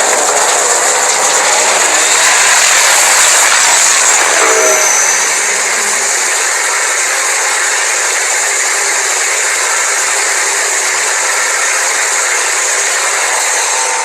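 Godzilla-style atomic breath sound effect: a long, loud, steady hissing blast, a little louder in its first few seconds and easing slightly about five seconds in.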